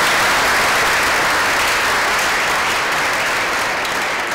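Audience applauding: dense, steady clapping from a large crowd, easing slightly near the end.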